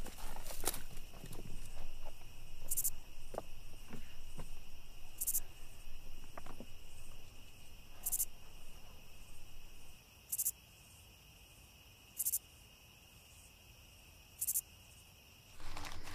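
Insects chirping: a steady high trill with a sharper, higher chirp about every two to three seconds. A few soft knocks and rustles come in the first half, and then only the insects remain.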